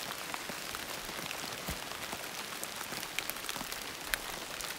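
Light rain falling steadily, with many single drops ticking one after another and a sharper drop about four seconds in.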